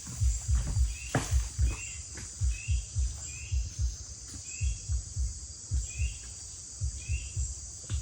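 Forest insects keep up a steady high-pitched drone, with a short chirping call repeating about every half second. Under it run irregular low thuds, two or three a second, which are the loudest sound.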